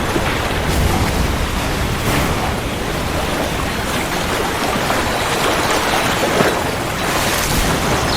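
Steady rain, an even dense hiss with a low rumble underneath.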